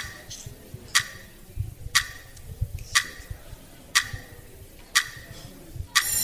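A quiz countdown clock ticking steadily once a second while a team works out its answer, with a bright ringing tone starting just before the end.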